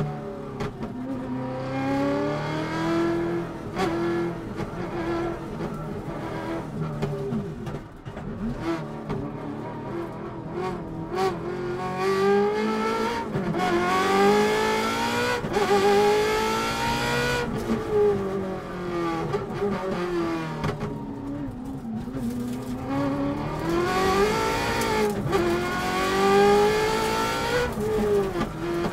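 Ferrari V8 engine of a Subaru rally car at full stage pace. It revs hard, climbing in pitch under acceleration and falling back on braking and downshifts, several times over, with sharp breaks at the gear changes.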